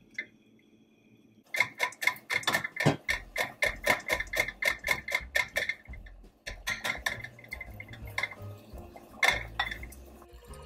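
Silicone whisk beating egg whites and sugar in a glass bowl over a double boiler, its wires clicking against the glass about four times a second. The clicking starts about a second and a half in, breaks off briefly around six seconds, then goes on more unevenly. The egg whites are being heated with sugar for a marshmallow (Swiss meringue) frosting.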